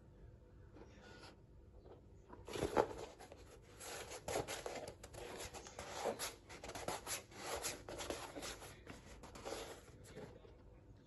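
Hands handling and turning a New Balance Furon v7 football boot, fingers rubbing and scuffing against its synthetic upper and knit collar. A quiet start, then a run of irregular rubbing and scuffing noises for most of the rest, loudest about three seconds in.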